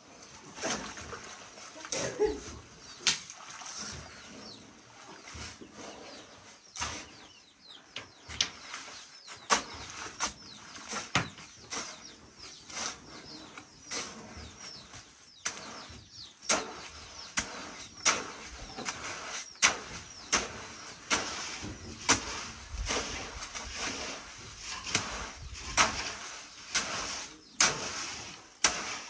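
Hand tools scraping and knocking in wet cement as a floor is spread and levelled, in irregular strokes about once a second.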